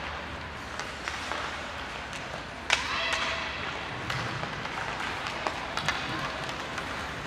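Ice hockey game sounds on the rink: scattered clicks and knocks of sticks and puck over a steady arena hubbub, with one sharp knock nearly three seconds in that rings briefly.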